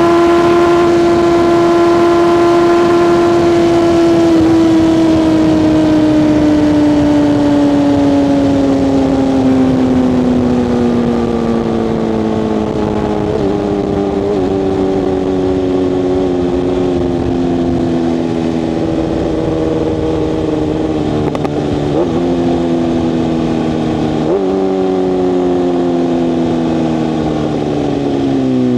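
BMW S1000RR inline-four engine running at a steady high pitch, then slowly dropping in revs as the bike slows on engine braking. The revs jump up briefly a few times, on downshifts.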